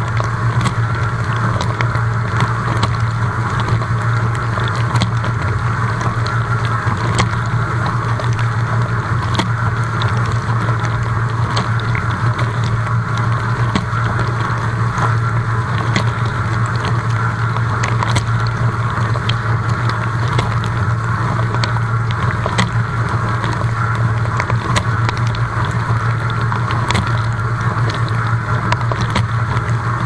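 Dishwasher running mid-wash, heard from inside the tub: the wash pump's steady low hum under the constant rush of water spraying over the dishes and racks, with scattered sharp ticks of spray striking them.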